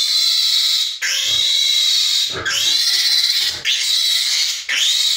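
A piglet screaming while it is held for an intramuscular iron injection in the thigh. It gives about five long, shrill squeals, each about a second long, with a brief gasp between them.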